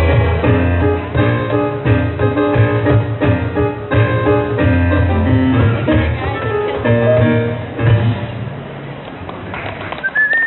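Roland digital stage piano and cajon playing an upbeat tune together, the piano notes ringing over low thumps on the cajon. The music winds down and stops about eight seconds in.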